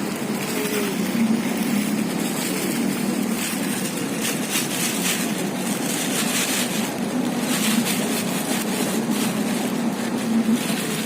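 A steady low motor hum under a broad hiss, with irregular brighter rustling noises over it.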